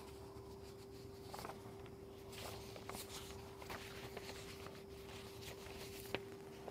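Faint rustling of loose paper sheets being leafed through by hand, with small scattered crinkles and ticks, over a steady hum.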